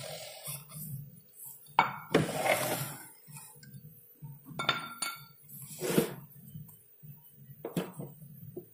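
Sharpening stones and a diamond plate being picked up and set down on a hard stand: several separate knocks and clinks, some with a short ring, and a scrape lasting about a second, about two seconds in.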